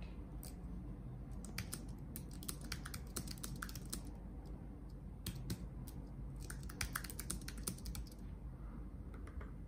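Keys of an external computer keyboard being typed in quick runs of keystrokes, with short pauses between phrases.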